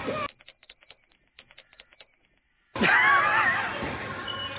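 A high, bell-like ringing with rapid jingling strikes for about two and a half seconds. It stops suddenly, and then several voices shout.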